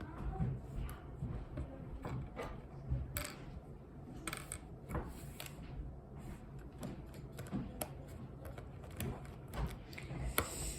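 Plastic pieces of a mini Rubik's cube clicking and scraping as it is handled and pried apart: irregular light clicks with short scrapes between them.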